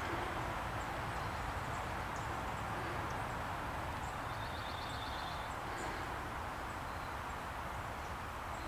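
Buffalo Forge No. 25 blower coasting down after a hand spin, a steady airy whir that fades very slowly as the fan loses speed. A bird chirps faintly, with a short trill about halfway through.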